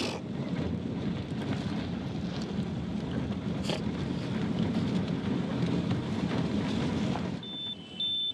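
Steady rumble of road and engine noise heard inside the cabin of a Hindustan Ambassador car on the move. Near the end the rumble drops and a short, high electronic beep sounds.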